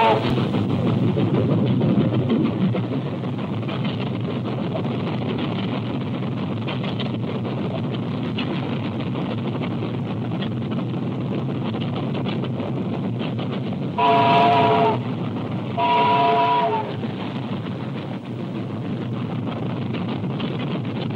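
Steam locomotive running with a steady rumble, its whistle blowing twice, about a second each, a little past the middle.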